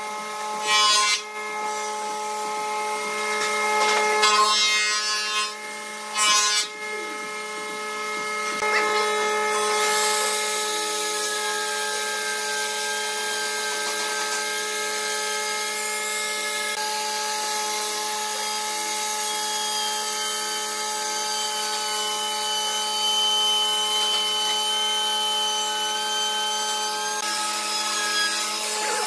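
Handheld Makita trim router running and cutting along a wooden edge, a steady high whine from about ten seconds in. Before that come a few short, loud bursts of tool noise, and a steady hum of several tones runs underneath throughout.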